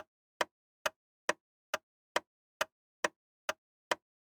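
Clock-like ticking sound effect, about ten short, even ticks a little over two per second, counting off the pause left for an answer.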